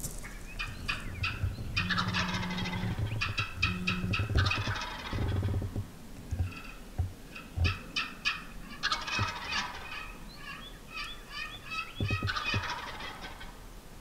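A wild turkey gobbler gobbling again and again, each gobble a rapid rattling burst, with a few softer calls between them and some short low thumps.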